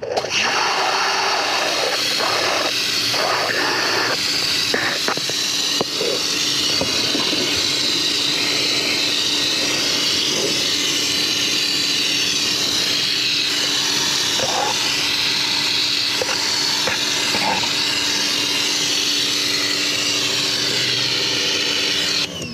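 Pressure washer spraying soapy water through a foam-cannon lance against a wheel well, tire and frame: a steady loud hiss of spray over a steady hum. It cuts off near the end.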